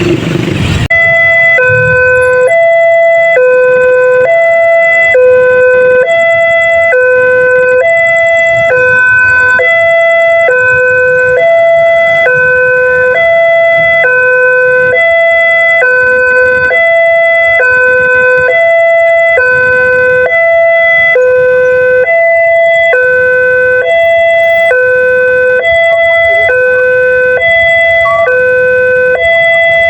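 Railway level-crossing warning siren sounding loudly: an electronic two-tone signal alternating steadily between a lower and a higher tone, about one and a third seconds per high-low cycle. It cuts in abruptly about a second in and means a train is approaching the crossing.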